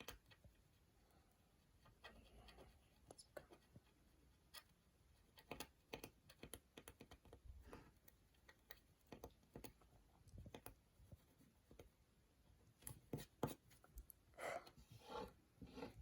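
Faint scratching of a stylus on rainbow scratch-art paper: short, scattered strokes, a little louder near the end.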